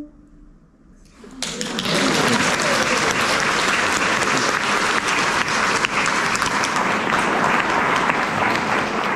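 Audience applauding, starting about a second in and continuing steadily, after the last note of an unaccompanied sung hymn dies away at the start.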